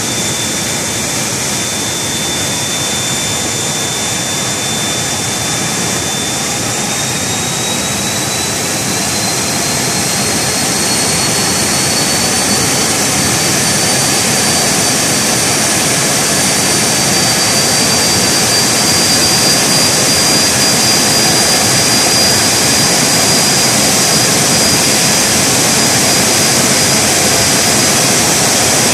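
Joy EB compressor running on a test bench: a steady rush of air with a high whine that climbs slowly in pitch, getting slightly louder about ten seconds in.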